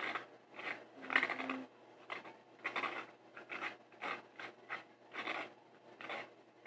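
Hands squishing and kneading slime: a run of short, wet, crackly squelches, roughly one or two a second.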